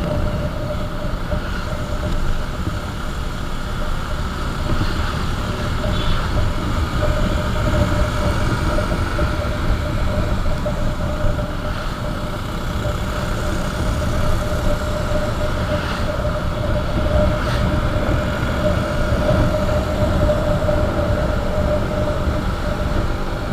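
Motorcycle on the move: a steady engine drone over continuous wind and road rumble on the rider's microphone.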